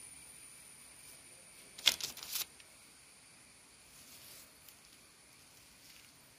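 A brief rasping, rustling scrape about two seconds in, a few quick strokes together, as the halved cucumber is handled and shifted in the hand against the metal surface. A faint steady high-pitched whine sits underneath.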